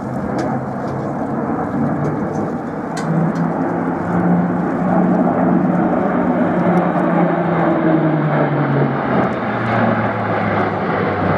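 Airbus A400M's four Europrop TP400-D6 turboprops and their eight-bladed propellers droning loudly as the aircraft flies a low display pass. The deep propeller tone steps up in pitch about three seconds in, holds, and falls back near the end.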